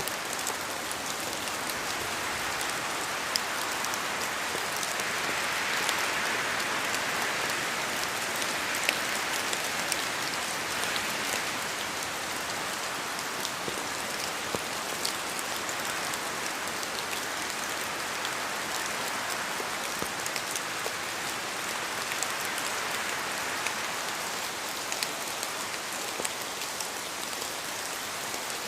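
Steady rain in a forest: an even hiss flecked with many sharp single drops, swelling a little for several seconds a few seconds in.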